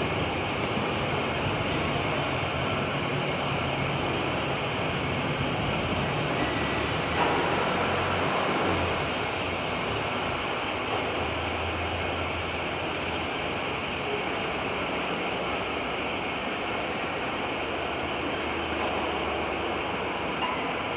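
CNC woodworking router running, a steady even rushing noise with a low hum that steps up and down now and then.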